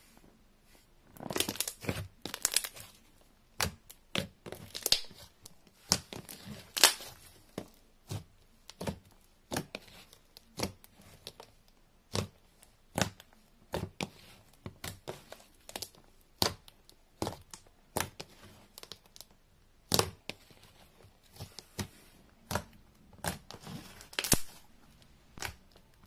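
Clear glue-based glitter slime squeezed, folded and poked by hand, giving a string of sharp sticky clicks and pops about a second apart, with a few quick clusters.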